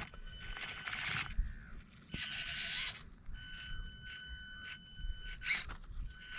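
Axial SCX24 micro RC crawler driving over rocks: the small brushed motor and speed controller give a steady high whine that stops and starts with the throttle. The tyres and chassis scrape on the rock between the bursts of whine.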